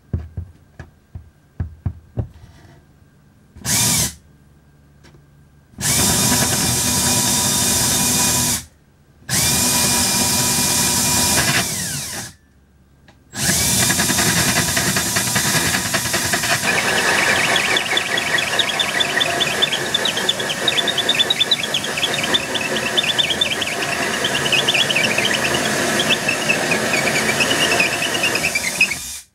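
Cordless drill driving a bi-metal hole saw up into the underside of a cabinet. After a few light clicks and a brief blip of the trigger, it cuts in three stop-start runs, the last one long, with the saw teeth chattering as they bite.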